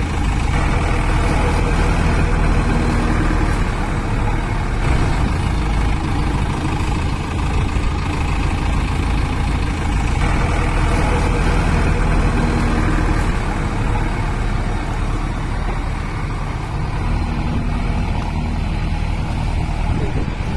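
Diesel engine of a JCB 3DX backhoe loader, together with its attached generator set, running steadily as a loud continuous rumble, its tone shifting slightly near the start and again about halfway.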